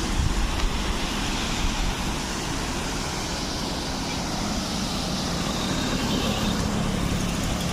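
Steady rush of water pouring from the dam, an even hiss spread over all pitches. Wind buffets the microphone around the first second.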